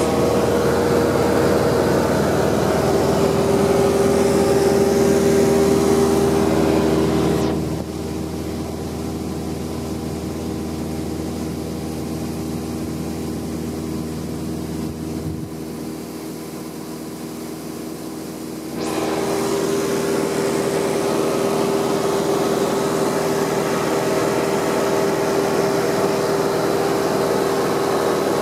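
Single-engine light aircraft's piston engine and propeller droning steadily, heard inside the cabin. For about ten seconds in the middle the drone turns quieter and duller, then comes back at full strength.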